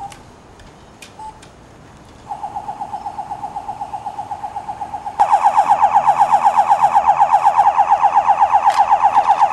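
Electronic toy ray gun sound: a pulsing beep, about seven pulses a second, starting about two seconds in, then jumping much louder and buzzier about five seconds in, like a car alarm's warble.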